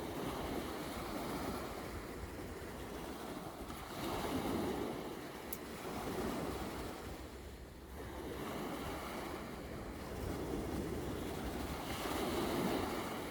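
Sea of Azov waves washing onto the shore, the surf swelling and falling back every few seconds.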